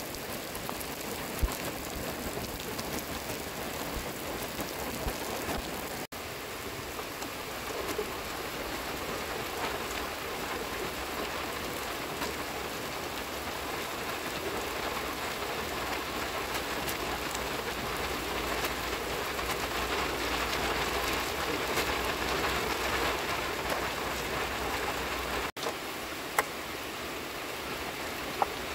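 Steady, even hiss of falling water, like rain on a surface, with two sharp clicks near the end.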